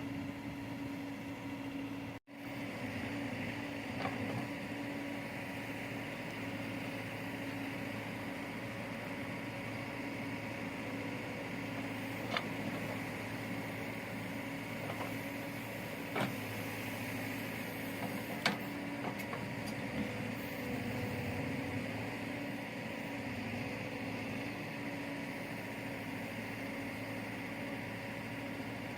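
Diesel engine of a JCB backhoe loader running steadily, with a few sharp metallic knocks from the working machine. The sound cuts out for an instant about two seconds in.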